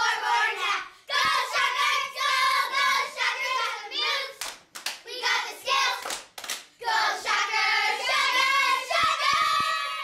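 A group of young girls singing together, with a few hand claps around the middle. The singing cuts off abruptly at the end.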